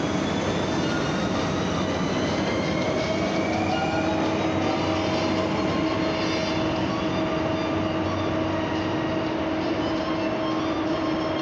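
Caracas Metro Line 1 train in the station: a steady, loud running rumble with an electric hum, and a whine that rises briefly about three seconds in.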